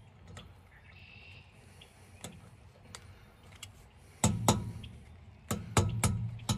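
Pliers working a new steel cotter pin into the castle nut on a wheel hub: metal-on-metal clicks and taps. At first the clicks are scattered and faint, then louder bunches of clicks come about four seconds in and again near the end.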